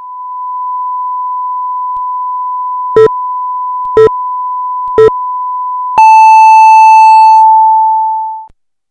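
Broadcast test-card tone, a steady electronic sine tone, with a time signal over it. Three short, lower beeps come a second apart. The test tone then cuts off, and a long beep sounds and fades out over about two and a half seconds, marking the turn of the minute in Japanese broadcast style.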